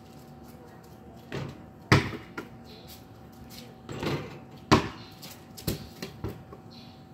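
A basketball bouncing and striking the hoop during shots: a handful of sharp knocks, the loudest about two seconds in and just before five seconds, then two smaller ones near the end.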